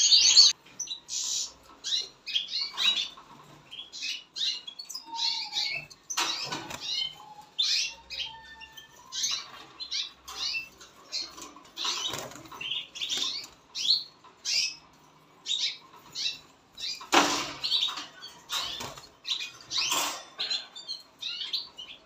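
Caged canaries and goldfinches giving short, scattered chirps and calls, roughly one every second, with a brief lull about fifteen seconds in.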